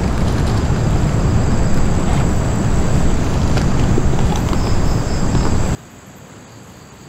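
Wind buffeting the microphone in a loud, steady rumble that cuts off suddenly about six seconds in, leaving a much quieter background.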